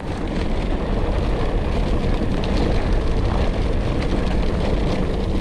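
Mountain bike rolling fast along a dirt forest trail, its tyres rumbling, under a steady rush of wind on the microphone, with a few light rattles from the bike.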